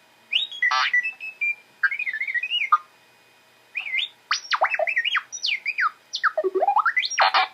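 R2-D2 droid sound effects: a string of electronic beeps, chirps and warbling whistles that glide quickly up and down in pitch, in several bursts with short pauses between them.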